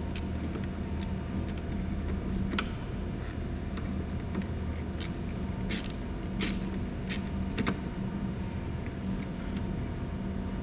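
Screwdriver tightening a hose clamp on a plastic hose: scattered sharp clicks and taps, most of them in a cluster in the middle, over a steady low hum.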